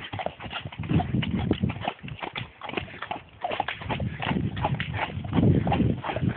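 A horse's hooves striking snow-covered ground in an uneven run of footfalls.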